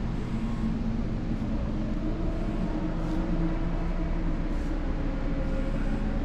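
Steady low droning hum with a rumble beneath it, the continuous background noise of a large hall, with no distinct event.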